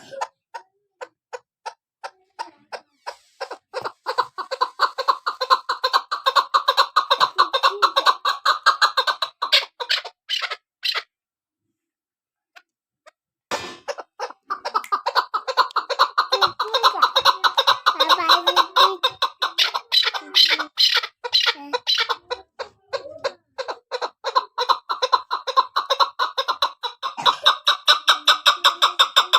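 Chukar partridge calling: short repeated notes, spaced at first, quicken within a few seconds into a long rapid run, break off for about two seconds near the middle, then start again and run on quickly.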